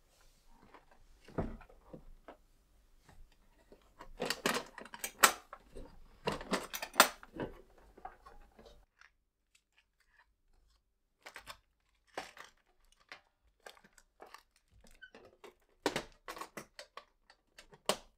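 Hands rummaging through a metal toolbox full of small hardware and nail packets: a clatter of quick clicks and knocks, thickest in the first half, then scattered single clicks as the lid and latch are handled.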